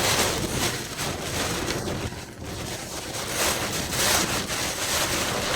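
Rushing floodwater: a loud, steady rushing noise that swells and dips, with no pitch to it.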